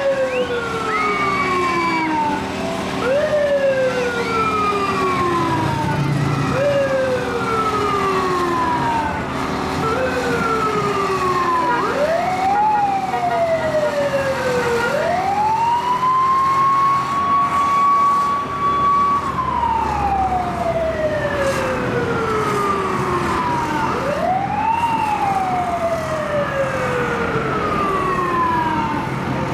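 Pinellas Park fire truck's old, weird-sounding siren, rising sharply and sliding slowly back down about every two and a half seconds. About halfway through it holds a steady high note for a few seconds before falling away, then rises once more near the end.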